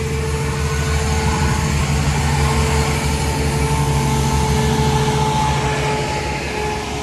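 CrossCountry Class 170 Turbostar diesel multiple unit passing close by, its underfloor diesel engines running with a steady low drone and a faint whine. The sound eases off near the end as the train draws away.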